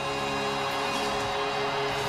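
Background music: held chords fading as a hissing, noisy wash swells up.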